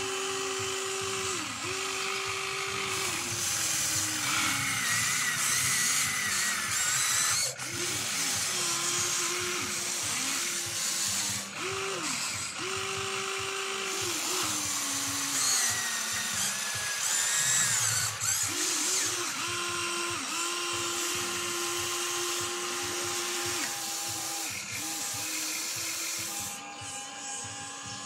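The Huina 1594 RC excavator's small electric motors whine in repeated short bursts as the boom, arm and bucket move. Each burst starts and stops abruptly, and some slide down in pitch as they stop.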